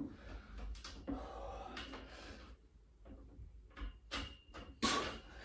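A man doing a single pull-up on a freestanding pull-up station, breathing hard and straining after a long set. There is a sharp clack as his hands grab the bar, and near the end a louder thud as he drops back to the floor.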